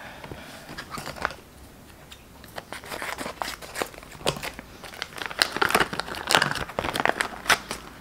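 Thin plastic parts packet crinkling and tearing as it is cut open with scissors and pulled apart, with a dense run of sharp crackles through the middle and later part.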